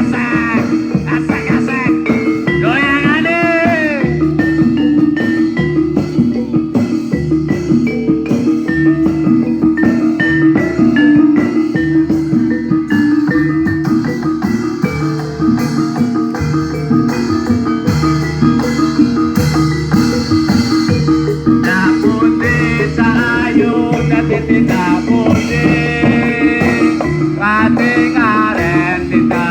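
Javanese gamelan music: bronze metallophones play a steady repeating melody over drums, with a voice singing over it near the start and again in the last several seconds.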